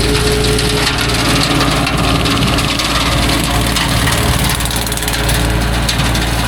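Tractor engine running steadily under load while its rotary brush cutter shreds woody brush.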